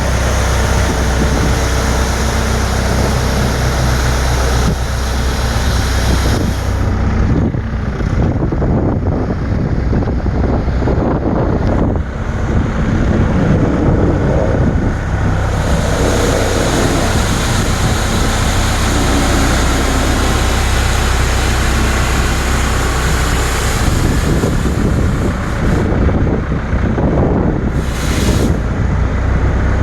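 Engine of a sweeping or snow-clearing machine running steadily, a low hum under a loud rushing noise that rises and falls.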